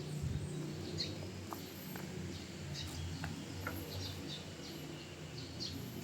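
Birds chirping: short, scattered high calls over a faint, steady low hum.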